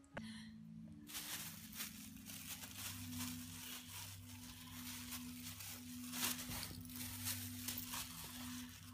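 A brown paper bag crinkling and tearing in irregular crackles as a boxer and a smaller dog tug at it, over a low steady hum.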